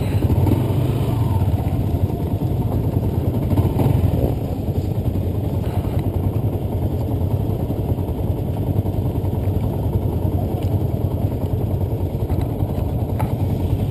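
Yamaha Sniper 150's single-cylinder engine running steadily at low revs, without revving.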